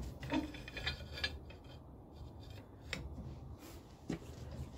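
Faint metal handling on a hitch-mounted manual bender: a few sharp clicks and light rubbing as the steel plate is loosened, slid along and locked at its next mark for another small bend, over a low steady rumble.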